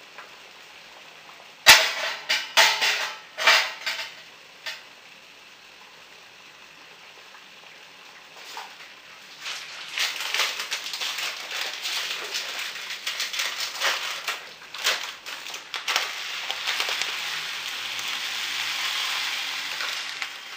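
A stainless steel saucepan lid is lifted off with a loud metal clank about two seconds in, followed by a few knocks. Later a packet of basmati rice crackles as it is handled, and the rice is poured into the pot of boiling water with a steady hiss near the end.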